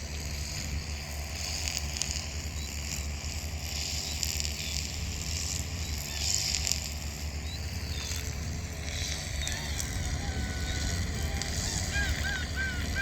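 Gulls calling, a few scattered cries at first and then many short, arched calls overlapping in the last few seconds, over a steady low rumble and hiss.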